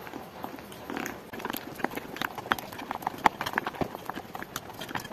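Plastic spatula clicking and scraping against a glass bowl while stirring gram-flour batter, a quick, uneven run of taps that grows busier after about a second and a half.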